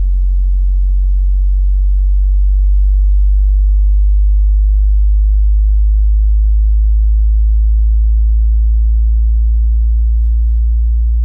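Car subwoofers playing a loud, steady low bass sine-wave test tone that rises slowly in pitch from the mid-40s to the low-50s Hz during an SPL test, reaching about 114.5 dB inside the car. The amplifier's subsonic filter is set at 12 o'clock.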